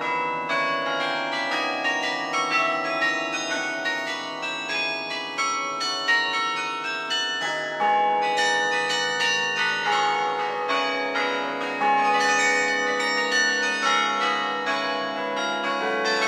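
Carillon playing a tune: many tuned bronze bells struck in quick succession, the notes overlapping as they ring on, with louder low chords about eight and twelve seconds in.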